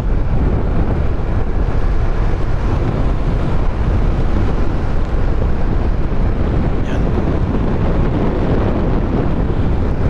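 Steady wind rush over the microphone of a moving motorcycle, with road noise underneath.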